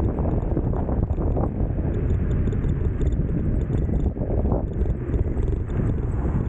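Wind buffeting the microphone of a moving electric scooter, a steady low rushing noise with the rumble of the ride underneath.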